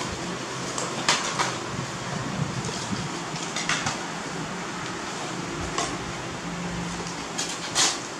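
A few light clicks and knocks of small household objects being handled, over the steady hiss of a room fan.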